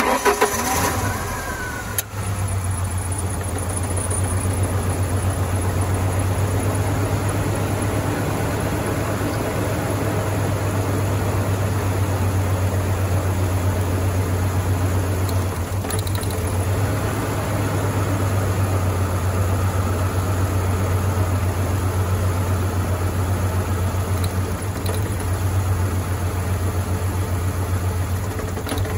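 Ford Ranger 2.3-litre four-cylinder engine starting at the very beginning and then idling steadily. It has a dead miss, which the mechanic traces to a bad fuel injector on cylinder number one.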